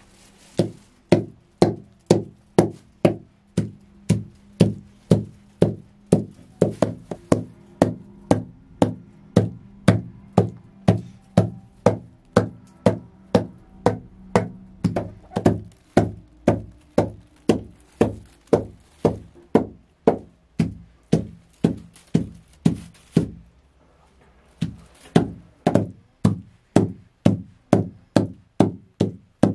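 Rhythmic knocking, about two sharp blows a second, stopping for about a second near the end and then starting again.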